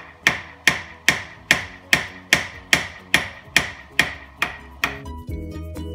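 Small jeweller's hammer striking a sterling silver pendant frame on a steel stake. About a dozen sharp, briefly ringing metal blows come at an even two and a half a second, hand-hammering texture into the frame. The hammering stops about five seconds in and background music takes over.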